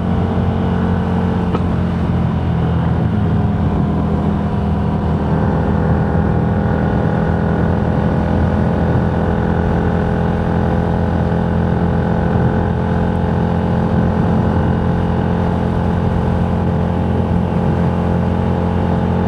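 Car driving at a steady speed, heard from inside the cabin: an even drone of engine and road noise with a constant low hum.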